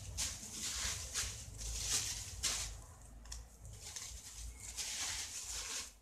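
Thin plastic bags of raw meat rustling and crinkling as they are handled and moved around, in irregular bursts.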